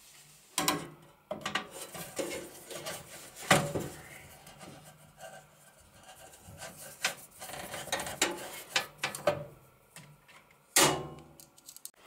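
Screwdriver and screws fastening a motherboard into a PC case: irregular clicks and small metallic knocks with scraping and rubbing, and a louder knock about three and a half seconds in and another near the end.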